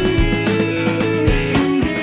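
Music with guitar and drums: pitched notes stepping from one to the next over regular drum hits.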